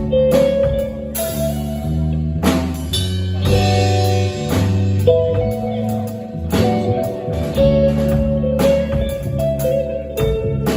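Live rock band playing: electric guitars and bass holding chords over a steady drum kit beat with cymbal hits.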